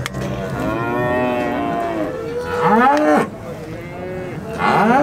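A young bovine held for hoof trimming moos twice. The first call lasts about three seconds, its pitch rising and then falling, and the second begins near the end.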